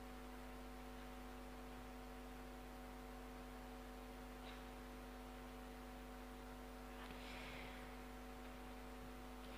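Near-silent pause: a faint, steady hum of several tones from the microphone's amplification system, with a soft hiss about seven seconds in.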